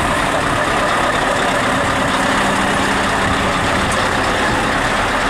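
Diesel engine of a Scania truck running at low revs as the truck rolls slowly past close by.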